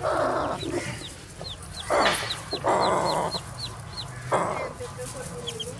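Newly hatched chicks peeping in a quick run of short, high, falling peeps, broken by a few loud, harsh clucks from the hen.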